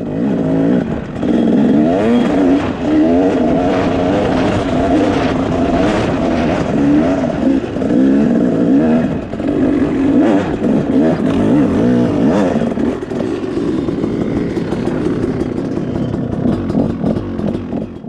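Yamaha WR250F dirt bike's single-cylinder four-stroke engine being ridden along a trail, its revs repeatedly rising and falling as the throttle is worked, easing off somewhat in the last few seconds.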